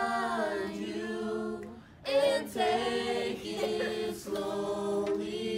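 A small group of voices singing together without instruments, holding long notes, with a short break about two seconds in before the next held notes.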